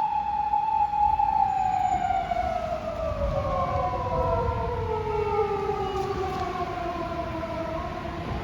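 An emergency vehicle's siren sounding a slow wail: it holds a high pitch for about two seconds, then slides steadily down by about an octave. A low rumble runs beneath it.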